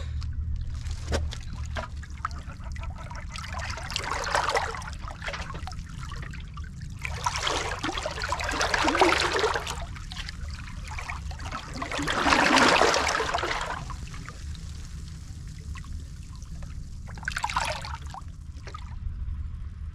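Estuary water lapping and sloshing against rocks at the water's edge, swelling in four washes about 4, 8, 12.5 and 17.5 seconds in, over a steady low rumble.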